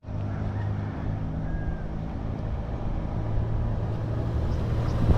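Small utility vehicle's engine running steadily while driving, with a hum of road and wind noise.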